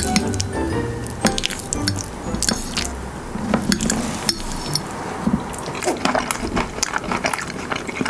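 Scattered clinks and taps of kitchen utensils against dishes, with background music.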